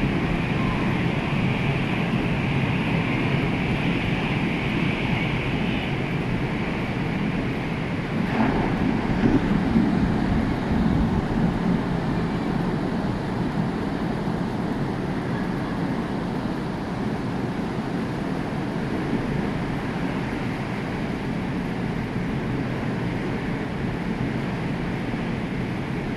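Heavy hurricane-driven surf breaking, with strong wind buffeting the microphone as a continuous rumble of noise. It swells about eight seconds in and eases off gradually after.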